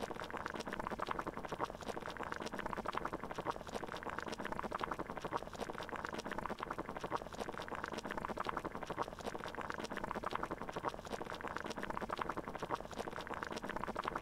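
Water boiling in a pot: a steady, dense bubbling.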